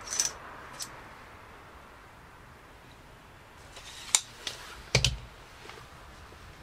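A few sharp clicks and light knocks from handling a tape measure against an aluminium tripod leg: a scrape and click at the start, a run of clicks ending in a sharp snap about four seconds in, and a double knock a second later.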